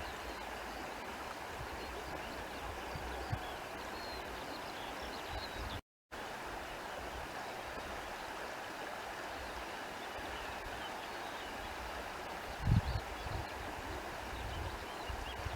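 Outdoor countryside ambience dominated by a steady, even rush like a flowing stream. It drops out to silence for a moment about six seconds in, and a few low thumps of wind on the microphone come near the end.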